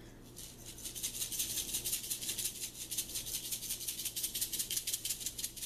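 A shaker of dry barbecue seasoning being shaken hard and fast, the granules rattling inside in quick, even strokes, many to the second, starting about half a second in.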